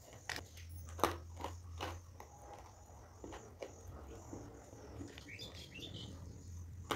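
Shale stone pieces being bitten and chewed close to a clip-on microphone: sharp, dry crunches at irregular intervals over a steady low hum.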